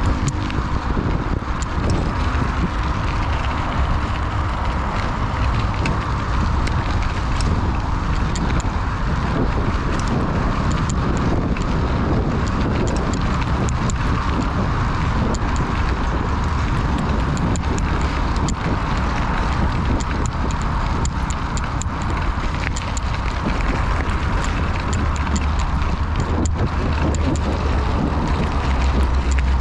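Mountain bike riding along a dirt and gravel path: steady rolling noise of the tyres on the ground, with small crackles scattered through it.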